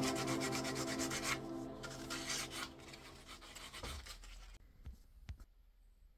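Hand rubbing or sanding strokes on an oak tabletop, a quick scratchy run over a background of held musical tones. Both fade out about four seconds in, followed by a couple of soft clicks.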